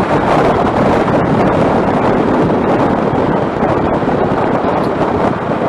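Wind buffeting a motorcycle rider's microphone at riding speed: a loud, steady rush of wind noise.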